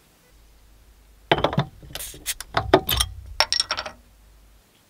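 Bottle being opened on a wall-mounted cast-iron bottle opener: a quick run of sharp metallic clicks and clinks lasting a couple of seconds as the cap is levered off.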